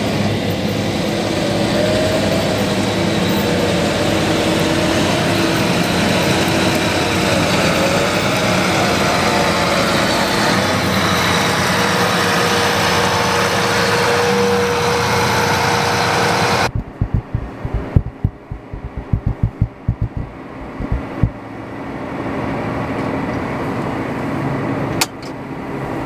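John Deere tractor with a grain cart running close by: a steady, loud engine and machinery din. About seventeen seconds in it cuts to quieter, irregular low thumps, then a softer steady engine noise.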